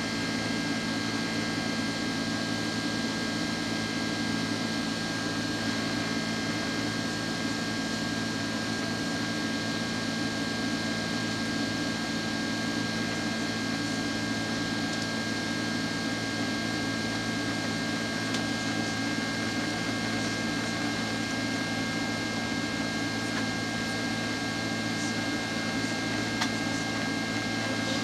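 Steady cabin noise of a Boeing 767-300ER airliner in flight shortly after takeoff: the rush of engines and airflow, with a few constant whining tones over it and no change in level.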